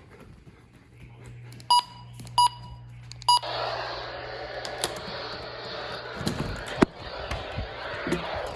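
Three short electronic key beeps from a weather radio's buttons. Right after the third beep, about three seconds in, a steady hiss of radio static starts from weak reception. A couple of sharp handling knocks come later.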